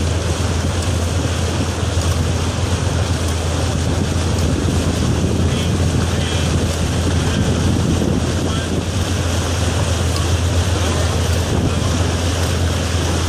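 Steady wind noise buffeting the microphone, with a low rumble and rushing water from a boat under way.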